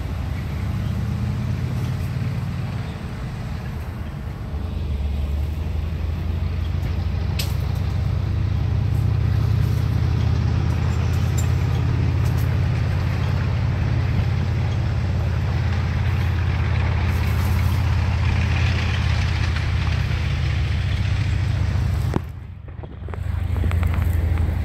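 Armored vehicle's engine running with a steady low rumble, growing louder from about five seconds in.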